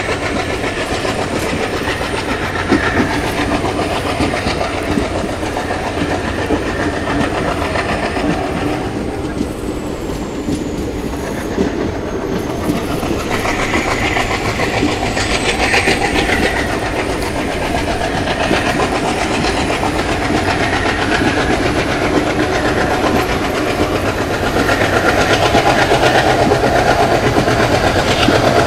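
Passenger train running along the track, heard from beside a moving coach: steady rumble and rattle of coach wheels on the rails. It grows a little louder for the last few seconds.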